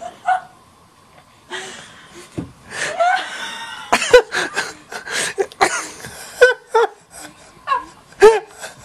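Laughter, a quick run of short chuckles and laughs that starts about three seconds in.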